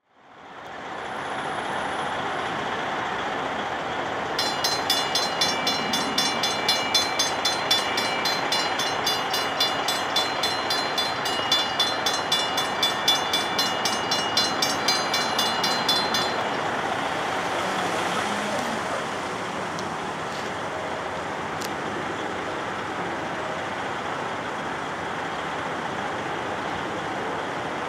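Safetran mechanical crossing bells at a railroad grade crossing, striking rapidly and evenly as the crossing warns of an approaching train and the gates come down. They start about four seconds in and fall silent about sixteen seconds in, over steady background noise.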